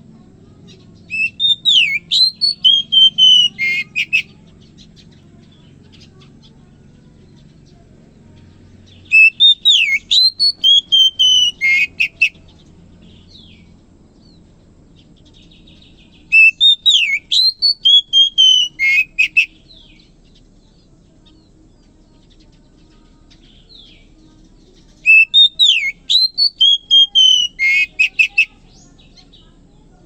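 Oriental magpie-robin singing four loud whistled phrases of about three seconds each, much alike, with pauses of several seconds between them. Each phrase is made of gliding whistles and ends in a quick run of notes.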